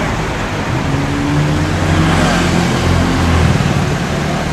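Motorcycle engine running steadily close by, its low hum shifting slightly in pitch, over a general background din.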